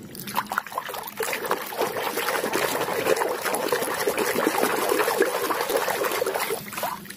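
A hand swishing and scrubbing through a tub of muddy water while washing toys, with continuous splashing and sloshing. It starts just after the opening and dies away shortly before the end.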